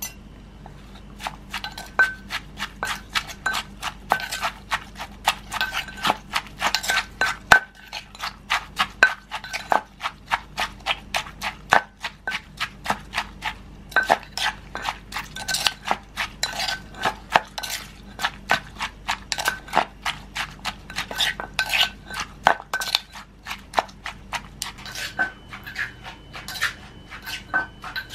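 Wooden pestle pounding cucumber salad in a clay mortar, som tam style, to bruise the vegetables into the dressing. The knocks come in a quick, steady run of about two to three a second, starting about a second in, with a metal spoon clinking against the mortar as the salad is turned.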